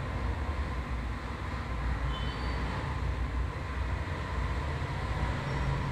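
Ricoh multifunction laser printer running a copy job: a steady mechanical whir and rumble from its motors.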